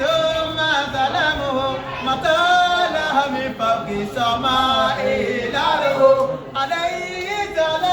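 Unaccompanied voices singing Islamic praise chant (dhikr) in a melodic, drawn-out style. The long-held notes slide up and down in ornamented turns.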